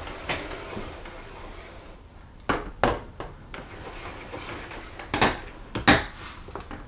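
Bali cordless roller shade being pulled down and raised again, giving a few sharp clacks from its bottom rail and roller: one just after the start, two about halfway through and two near the end.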